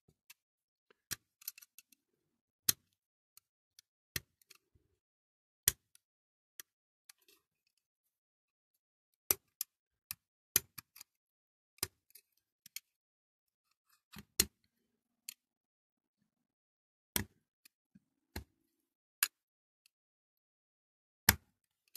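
Sharp, irregular metallic clicks, about twenty of them, as a thin drill bit held in the fingers works and catches in the rivet hole of a diecast Dinky Toys Muir Hill dump truck's chassis.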